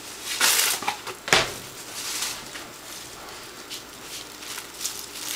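Clear plastic wrap rustling and crinkling as it is pulled out and handled: a longer hissing pull about half a second in, a sharp snap just over a second in, then light scattered crinkles.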